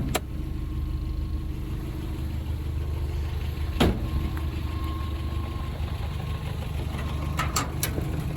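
Rebuilt Toyota 22RE 2.4-litre four-cylinder engine running steadily, with a few sharp knock-like clicks: one about four seconds in and a cluster near the end. The owner traces the knock-like noise to the fan shroud hitting the cooling fan.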